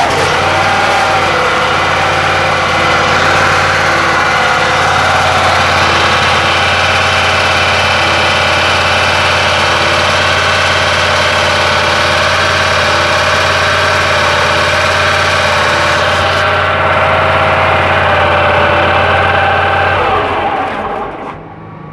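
A 2.5 kVA portable generator's engine running steadily with a constant hum, started just before by its key switch to test a newly fitted AVR. About 20 seconds in, it winds down to a stop.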